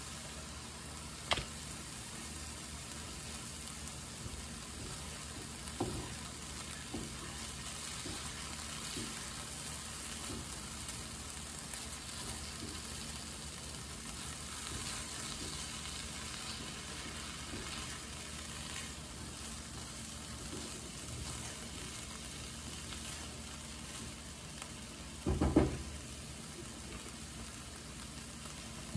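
Diced chicken and Italian sausage frying in a skillet with a steady, low sizzle as they are stirred in with a silicone spatula. A few light knocks, with a louder cluster near the end.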